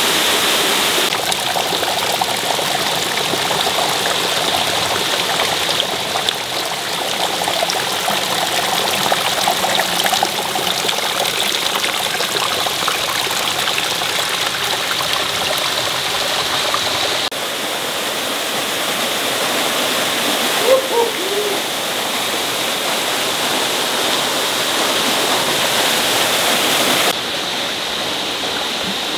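Waterfall pouring into a plunge pool, with water dripping and trickling off a rock face: a steady rush of falling water that jumps in level a few times. About two-thirds of the way through there is a brief squeak.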